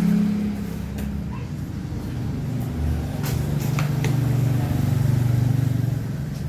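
Motor vehicle engine running with a low steady hum that drops in pitch about three seconds in, with a few short sharp clicks over it.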